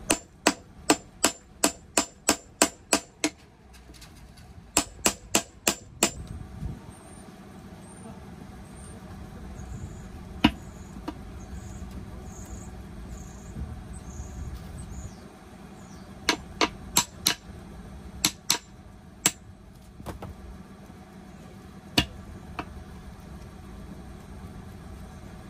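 Sharp metal-on-metal blows, hammering in quick runs of several strikes about three a second with single blows between, as a bent edge of the Fiat 126's steel wheel is beaten straight.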